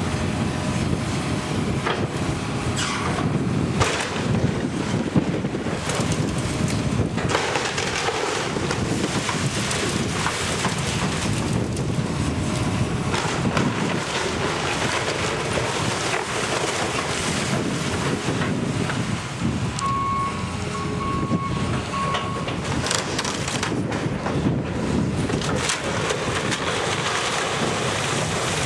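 Strong wind buffeting the microphone over demolition work, with scattered knocks and crunches of debris. About two-thirds of the way through come three short beeps about a second apart.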